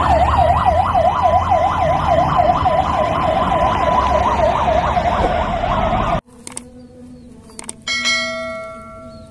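Fire engine siren sounding a fast rising-and-falling yelp, about three or four sweeps a second, over a low engine rumble; it cuts off abruptly about six seconds in. After it come two clicks and a single ringing bell-like ding that fades away.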